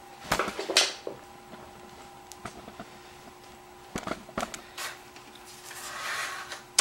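Handling noises while the camera is set on its tripod: a few sharp knocks and clicks, with some rustling near the end, over a faint steady hum.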